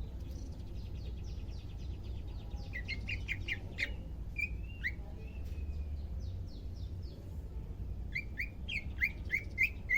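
Cucak ijo (green leafbird) singing: quick runs of high chipping notes, a couple of short whistles midway, and a fast series of loud short notes near the end, over a low steady rumble.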